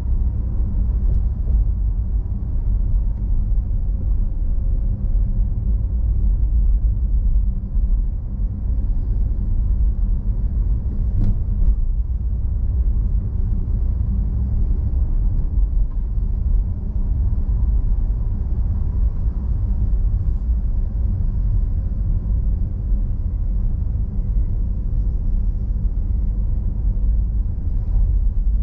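A car driving slowly, heard from inside the cabin: a steady low rumble of road and engine noise, with a single brief click about eleven seconds in.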